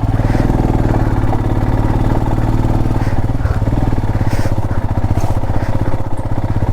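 Motorcycle engine running steadily as the bike is ridden along a rough off-road track, with a couple of faint knocks about four and five seconds in.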